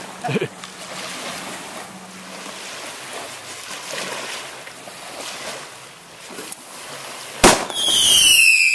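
Small waves lapping at the shore, with wind on the microphone. About seven and a half seconds in comes a sharp bang, then several overlapping whistles falling in pitch, like whistling fireworks.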